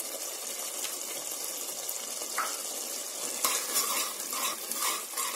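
Tomato-onion masala sizzling in a pressure cooker on the stove. From about three and a half seconds in, a metal ladle stirs and scrapes the pan in rapid strokes, about three a second.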